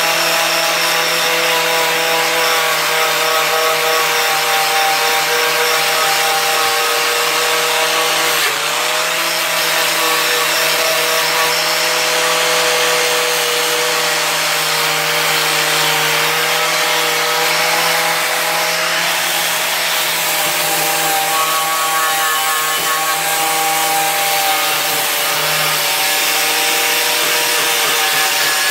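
Angle grinder running continuously, its disc grinding the paint off a sheet-metal toolbox, with a steady motor whine over the scraping noise. The pitch dips briefly about eight seconds in as the disc bites harder.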